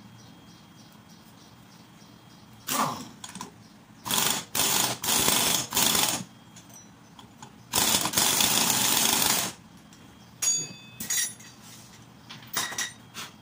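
Pneumatic impact wrench hammering on the flywheel nut of a Honda GX110 engine, tightening it, in several bursts. The longest burst, nearly two seconds, comes just past the middle, and a few light metallic clinks follow near the end.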